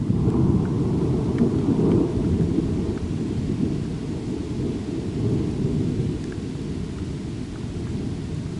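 Rolling thunder rumbling low and loud, strongest at the start and slowly dying away, over a light patter of rain.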